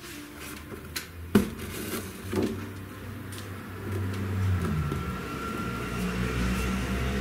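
Two sharp knocks about a second apart over a steady low hum, which grows louder about four seconds in.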